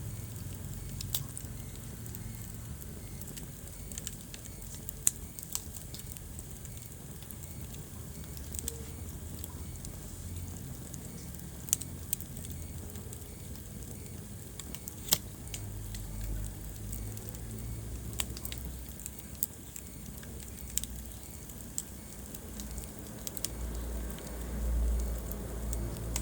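Wood fire burning in a fireplace: irregular sharp crackles and pops over a soft low rumble of flames, which swells near the end.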